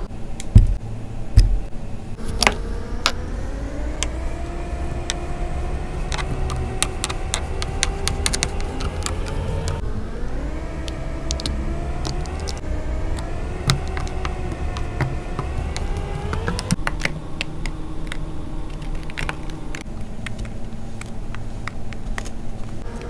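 Kinetic sand being pressed and packed into a wine glass, with many small crunchy crackles. Underneath runs a whine that rises slowly in pitch twice, and a low rumble.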